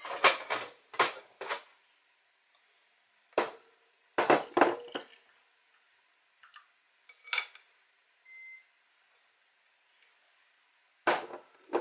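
Stainless-steel saucepan, metal sieve and glass bowl clinking and knocking against each other as cooked beetroot is strained off. The knocks come in several short bunches with pauses between, and a short faint beep sounds about eight seconds in.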